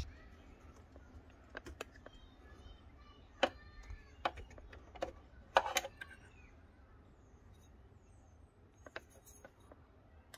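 Scattered light clicks and knocks of metal and plastic parts handled in a motorcycle's battery bay, as the battery hold-down bracket and its small fittings are taken off. The sharpest knocks come a little past three and again past five seconds in.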